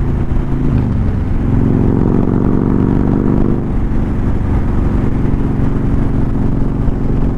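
Motorcycle engine running under way, heard from the rider's helmet; its note changes about a second in, runs stronger for a couple of seconds, then settles lower near four seconds in.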